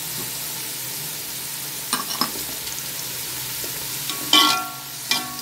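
Sliced onions frying in hot oil in a steel pot, a steady sizzle. A metal slotted spoon clinks against the pot a couple of times about two seconds in, and gives a louder metallic scrape with a short ring near the end.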